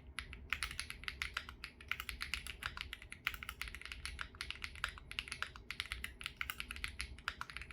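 Fast, continuous typing on a Wave75 mechanical keyboard with 雪青 (snow cyan) switches, factory lube wiped off, and GMK ABS keycaps: a dense run of keystroke clacks with a brief break just after the start.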